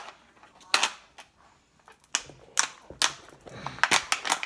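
Thin plastic water bottle crackling and clicking as it is squeezed and worked by hand, with a stick pushed through its holes: one sharp crack about a second in, then a quick run of crackles in the second half.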